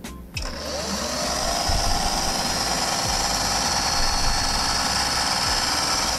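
Singer 404 straight-stitch sewing machine running on a first test sew: its motor whine rises as it speeds up over the first couple of seconds, then holds at a steady speed until it stops at the end.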